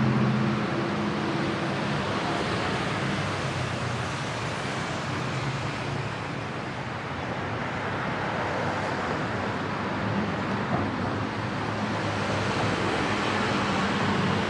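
Steady traffic noise from cars and motorbikes passing on a busy multi-lane city road: a continuous rush of tyres and engines. The low hum of nearby engines is strongest near the start and again near the end.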